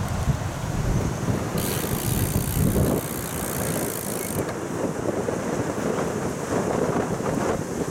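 Wind buffeting the microphone of a camera on a moving bicycle. The low rumble eases about three seconds in as the bike rolls into a concrete underpass. A high hiss comes in for a couple of seconds in the middle.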